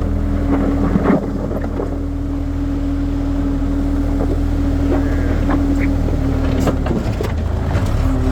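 Skid steer engine running steadily under work, with a constant whine over the engine hum that dips in pitch briefly near the end. A few knocks and rattles sound as the bucket works the dirt, the loudest about a second in.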